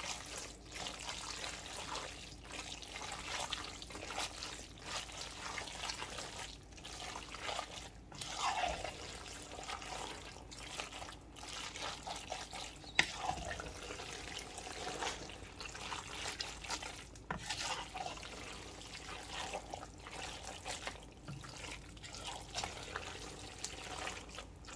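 Wooden spoon stirring fettuccine and chicken through thick, creamy Alfredo sauce and softened cream cheese in a pan: irregular wet, sticky squelching, with one sharper knock about halfway through.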